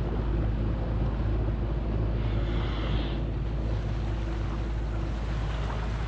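Small boat's motor running steadily, with wind noise on the microphone and water against the hull. A brief hiss a little before the middle.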